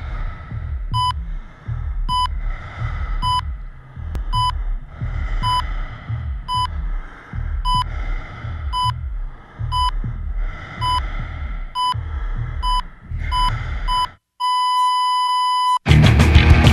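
Electronic beep about once a second over a low throbbing pulse, in the style of a heart monitor. About 14 s in it turns into one unbroken steady tone like a flatline, followed about 16 s in by a loud crash-like hit.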